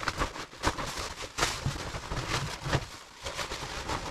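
A new, stiff two-ply waterproof rain suit rustling and crinkling as it is pulled off, in a run of irregular swishes and crackles.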